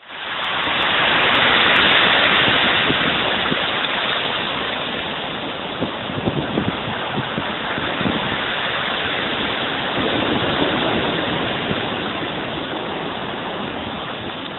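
Sea waves breaking and rushing ashore in a loud, continuous wash that swells about two seconds in and then slowly eases, with a few low rumbles midway.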